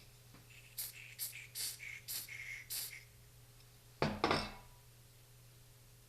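About six short hissing strokes in quick succession as silicone lubricant is applied to the camera's shutter area, then two sharp knocks about four seconds in.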